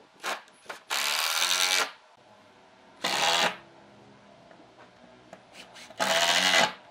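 Makita cordless impact driver driving wood screws into pine in short runs: two brief blips and a run of about a second near the start, then half-second runs about three and six seconds in.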